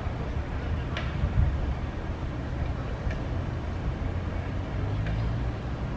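Steady low outdoor rumble with no speech, broken by a few faint clicks about one, three and five seconds in.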